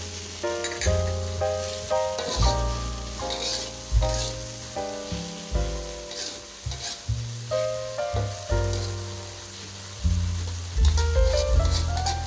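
Vegetables sizzling in a hot wok while a spatula stirs and scrapes them, under background music with a melody over a pulsing bass line and a rising run of notes near the end.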